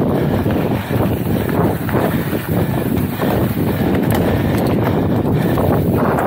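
Wind buffeting the microphone of a camera riding on a mountain bike at speed, mixed with the tyres rolling over a sandy dirt trail. It is a loud, uneven rumble with no let-up.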